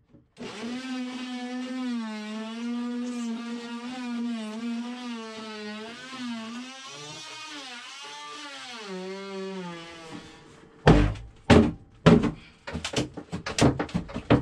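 Power saw cutting through an old plywood shelf, its pitch wavering under load and dropping near the end before it stops about ten seconds in. Then comes a run of sharp knocks and thunks as the cut piece is worked loose.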